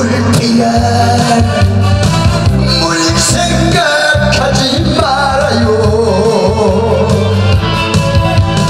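Male singer singing a Korean popular song (gayo) into a handheld microphone over a recorded backing track with a steady bass beat.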